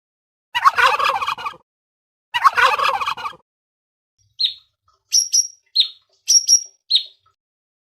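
A turkey gobbling twice, each call about a second long, then a small bird giving seven short, high chirps.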